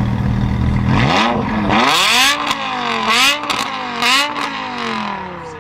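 V10 sports car engine rumbling at the line, then launching hard about a second in and accelerating through three quick upshifts, its note climbing and dropping at each shift. It then fades as the car pulls away.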